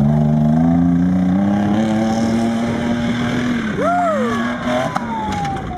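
An off-road vehicle's engine revving hard, its pitch climbing steadily for about three and a half seconds. About four seconds in, a higher note swoops up and down, and a sharp knock comes near five seconds as a vehicle rolls over.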